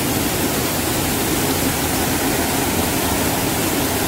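Swollen, muddy floodwater of a river rushing and churning white over a drop, a steady loud rush of water.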